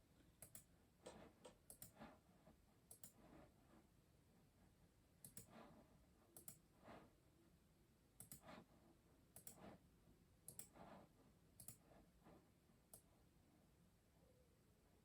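Custom mechanical keyboard being typed on slowly and unevenly: quiet, scattered key clacks, some in quick pairs, with short pauses between them.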